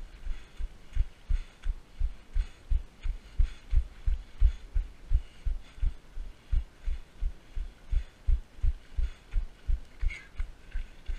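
Footfalls of a person running, heard as steady low thuds through the runner's own camera at about three a second, with a faint hiss above them.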